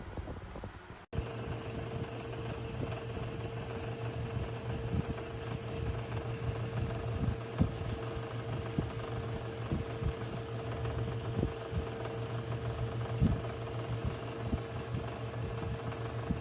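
Small 8-inch wall-mount electric fan running at speed: a steady whir with a low hum and a held mid-pitched tone, setting in abruptly about a second in, with a few faint soft knocks.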